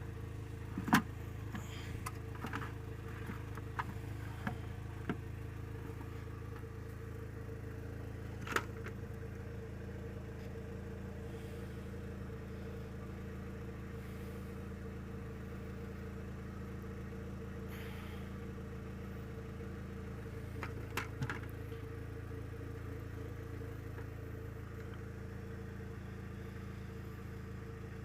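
An engine idling steadily, with a sharp knock about a second in and a few lighter clicks and knocks later on.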